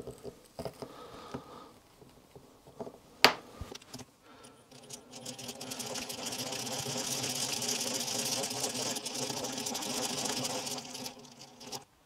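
Small electric drill with a micro drill bit, about 2.5 mm, boring the key-ring hole through a small wooden key ring. It gives a steady high buzz that starts about four and a half seconds in and stops just before the end. Before it come a few handling clicks, the sharpest about three seconds in.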